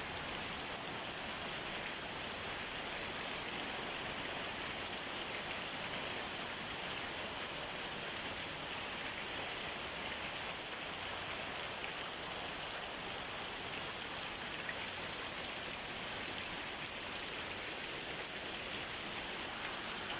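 Heavy tropical rain falling in a steady downpour, a constant even hiss.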